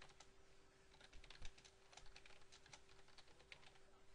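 Faint typing on a computer keyboard: a run of quick keystrokes, densest from about a second in, over a steady faint hum.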